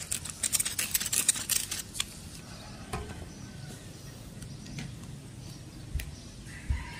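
A hand pad rubbed quickly back and forth over wet windshield glass to clear sanding residue after scratch removal, a rapid run of rubbing strokes that stops about two seconds in. A few isolated clicks follow.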